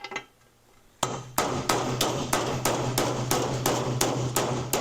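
Hammer blows on a 5/8 socket set against a cam bearing in a Harley XLCH crankcase, pounding the bearing out of its bore. After a single knock and a short pause, steady, evenly spaced strikes at about three a second begin about a second in.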